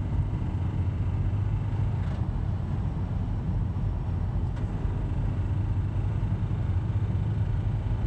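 A 2003 Toyota Celica GT's 1.8-litre four-cylinder engine and road noise heard from inside the cabin while cruising at about 60 mph, a steady low rumble. Two faint ticks come about two and four and a half seconds in.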